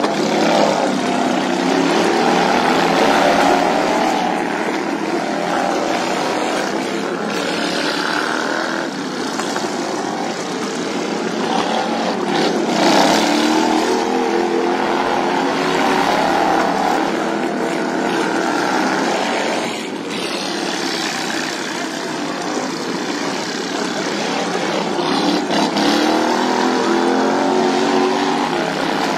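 Several racing lawn mowers' small engines running hard, their pitch rising and falling over and over as the mowers go past and ease off for the turns.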